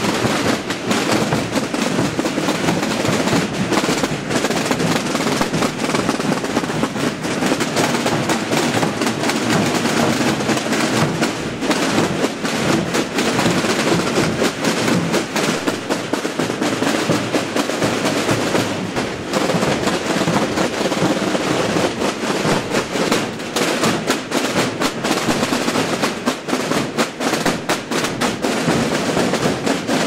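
Massed tambores (snare-type drums) and large bombo bass drums played together by many drummers in a dense, continuous drumming without a pause.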